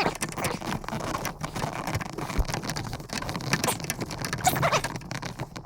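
Dense small clicks, scrapes and crackles of hands working a heater cable onto its control arm in an air-cooled VW Beetle, with metal parts and cable being handled at close range.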